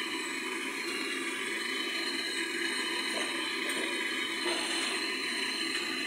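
Gas brazing torch flame hissing steadily as it heats a tube joint on a refrigerator compressor for brazing.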